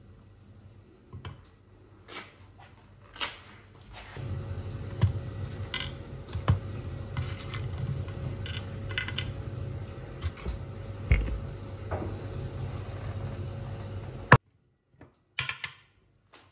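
A small knife clicking and tapping against a hard cutting board while apple slices are cut and their cores removed. A steady low hum runs under the taps from a few seconds in and stops abruptly with a loud click near the end.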